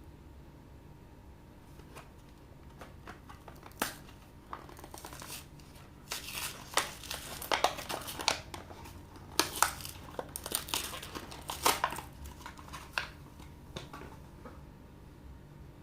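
Plastic packaging being handled: a few light clicks, then several seconds of dense crinkling and tearing as a wrapper is torn open, tailing off into a few soft ticks.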